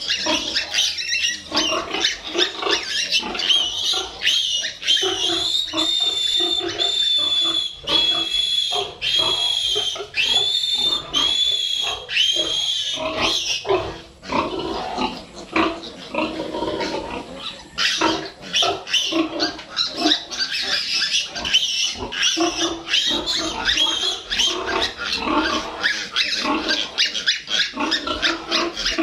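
Piglets grunting and squealing in a crowded pen. From about six seconds in, a run of long, high-pitched squeals repeats about once a second for some seven seconds, then the general grunting and squealing resumes after a brief lull.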